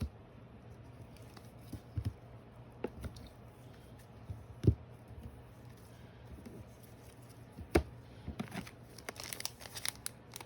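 Trading cards and card packs being moved around and set down on a tabletop: scattered soft taps and knocks, two of them louder, then a quick run of rustling and clicking near the end.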